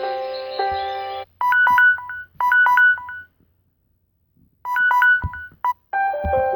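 Samsung Galaxy S5 ringtones played in turn: a piano-like melody cuts off about a second in, then short groups of quick electronic beeps on two pitches repeat with pauses between them, and another melodic ringtone begins near the end.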